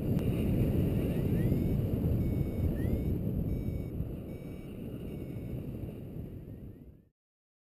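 Wind buffeting the microphone in flight, with a paragliding variometer beeping over it in short high tones and rising chirps, the sound it makes when the glider is climbing in lift. The sound fades and stops about seven seconds in.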